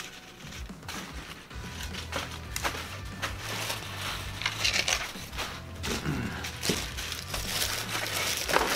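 Paper McChicken sandwich wrappers crinkling and rustling as they are handled and unwrapped, with scattered small clicks and taps.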